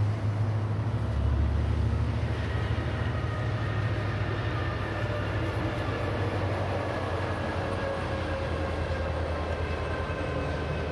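Diesel-hauled passenger train passing: a steady low engine drone with faint tones slowly falling in pitch.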